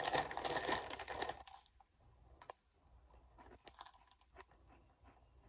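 Foil snack bag crinkling as a hand reaches in for about the first second and a half, then faint, irregular crunching as Funyuns onion-ring snacks are chewed with the mouth closed.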